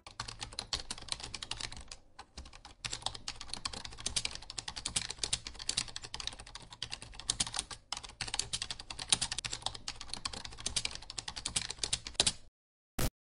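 Keyboard typing sound effect: rapid key clicks, with a couple of brief pauses, timed to text typing onto the screen. It stops about 12.5 seconds in, followed by one short click near the end.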